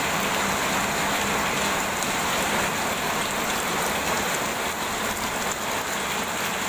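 Rain pouring down, a steady even hiss.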